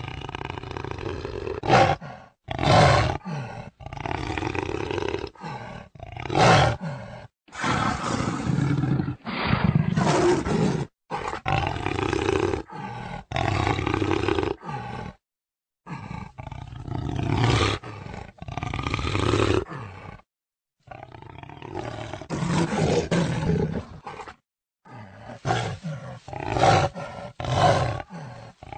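Jaguar roaring and growling in a long string of calls, short sharp roars between longer rumbling stretches, broken several times by sudden silent gaps.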